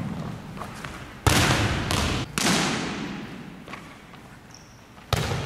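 Sharp smacks of a volleyball being struck in a passing drill, three of them: about a second in, another a second later, and one near the end, each ringing out in the echo of a large gym.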